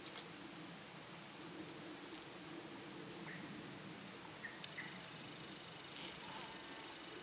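Steady high-pitched drone of an insect chorus, trilling without a break.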